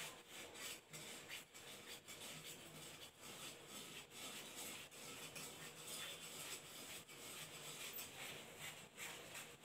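Scissors cutting through blouse fabric: a run of faint, irregular snips.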